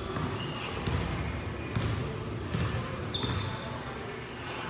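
Basketball bouncing on a gym court during play, several dribbles, with short high sneaker squeaks on the floor.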